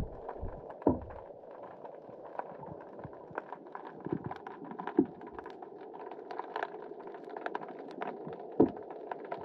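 Underwater sound picked up by a GoPro in its waterproof housing hanging on a fishing line: a steady muffled hiss with many scattered sharp clicks and three dull knocks, about a second in, halfway through and near the end.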